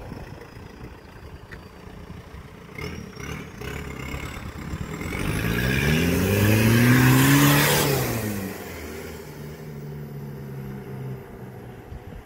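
Suzuki Samurai's swapped-in VW ALH 1.9 TDI turbo-diesel engine accelerating toward and past. The engine note climbs in pitch, is loudest about seven seconds in, then drops away and settles to a steadier note. A thin high whistle climbs in pitch just before the engine note rises.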